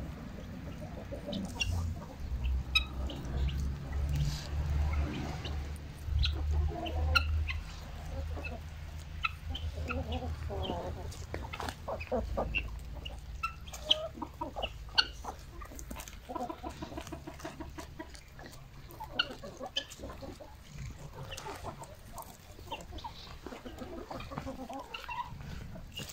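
Domestic chickens clucking with many short calls, among small clicks. A low rumble runs underneath through the first half.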